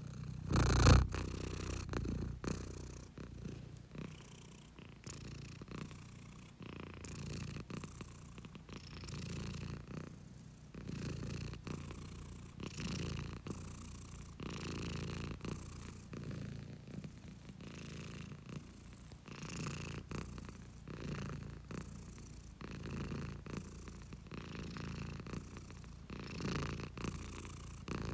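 Domestic cat purring close to the microphone, a steady low rumble that swells and eases every two seconds or so with its breathing. A loud thump about a second in.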